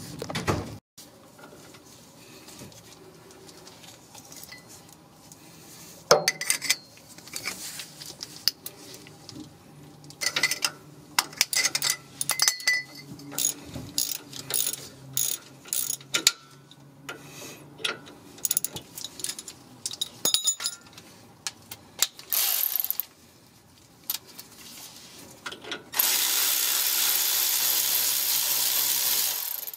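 Socket ratchet clicking in repeated runs of quick clicks as a rear brake caliper bolt is turned by hand. Near the end a cordless power ratchet runs steadily for about four seconds, louder than the clicking.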